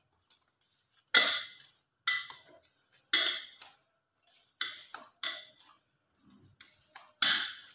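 Maize-flour dough being kneaded by hand in a steel plate, giving about six sharp knocks and clinks of the metal plate, each dying away within half a second.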